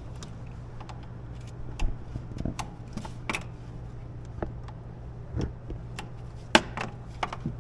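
Scattered light clicks and knocks of hand tools and parts being handled and moved around in a garage, the sharpest about two thirds of the way through, over a steady low electrical hum.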